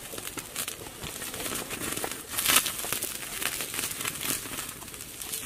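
Wood campfire crackling and popping, a dense run of sharp little cracks over a steady hiss, growing louder for a moment about halfway through.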